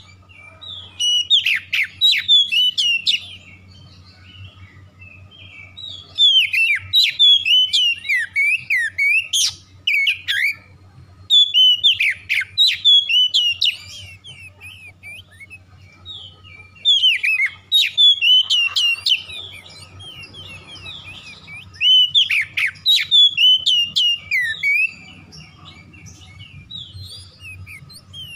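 Oriental magpie-robin singing loud phrases of quick, varied whistled notes. It sings about six bursts of two to four seconds each, with pauses of a few seconds between them.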